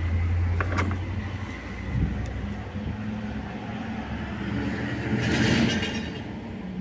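Handling noise from the cabin air filters being worked out of their housing behind the glove box: two sharp plastic clicks about half a second in and a scraping rustle around five seconds in, over a low rumble.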